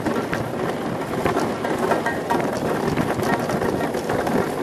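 Monotype XV ice yacht running at about 35 knots: a steady rushing rumble of the runners over the ice, dotted with many sharp clicks and cracks, mixed with wind buffeting the microphone.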